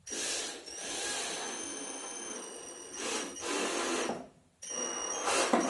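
Cordless drill-driver running, driving a screw into a wooden table leg: a steady motor whine for about four seconds, a brief stop, then further short runs.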